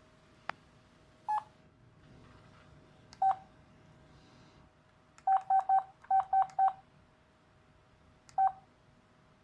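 Key-press beeps from a Huawei MomoDesign MD Touch mobile phone, as its menus are worked: single short beeps about a second in and at three seconds, a quick run of six between five and seven seconds in, and one more near the end. A faint click comes just before the first beep.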